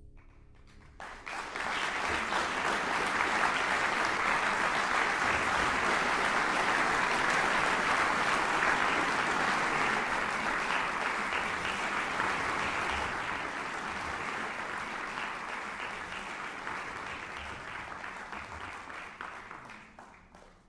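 The last notes of a piano die away, then audience applause breaks out about a second in, holds steady and gradually fades near the end, closing a live concert recording.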